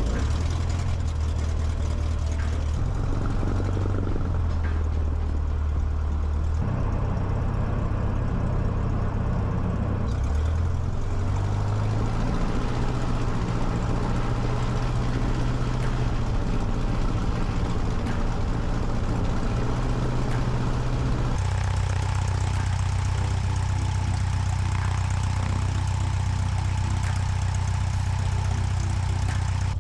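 1966 Cessna 150's four-cylinder Continental O-200 engine and propeller running at low taxi power, a steady drone that steps up or down in pitch a few times.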